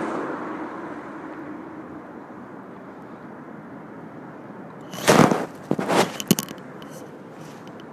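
Steady hum of city street traffic, with a vehicle close by at the start that fades away over the first couple of seconds. About five seconds in come a few loud rustling bursts and sharp clicks, over in about a second and a half.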